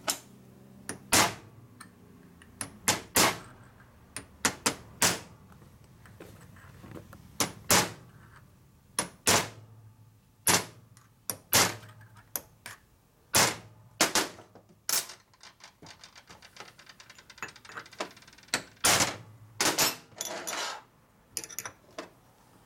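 Hand hammer striking steel parts: a long run of sharp metallic blows with a short ring, unevenly spaced about one a second. Past the middle comes a quick run of light taps.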